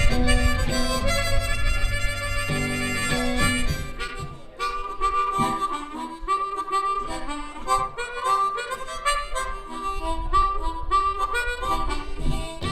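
Blues harmonica solo with a live band: long held chords for the first few seconds over the full band, then quick, short, repeated notes with lighter backing.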